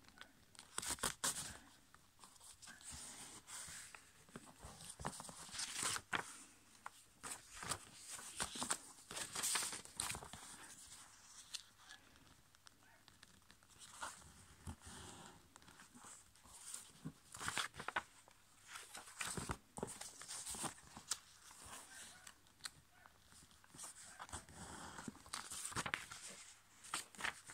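A sheet of A5 copy paper being folded and creased by hand: scattered rustles, scrapes and short crackles as fingers press and run along the folds and shift the paper on the table.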